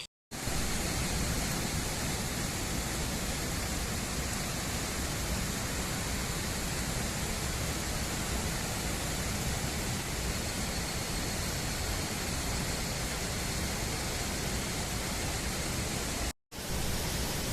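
Steady, even rushing noise spread across all pitches with a heavy low rumble, unchanging throughout and cut off abruptly twice for a split second.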